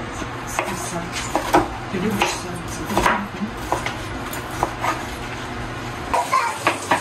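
Knife cutting pork on a wooden cutting board: irregular knocks of the blade through the meat onto the board, with a few clinks of dishes.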